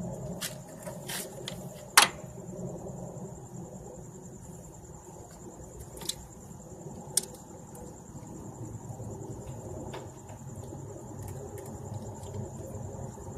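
A blade scraping old gasket material off the metal mating surface of the thermostat housing: a few sharp scrapes and clicks, the loudest about two seconds in, with lighter ones later.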